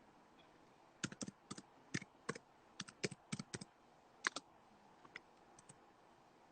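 Typing on a keyboard: an irregular run of about twenty quick key clicks, densest over the first few seconds, then a few sparse taps.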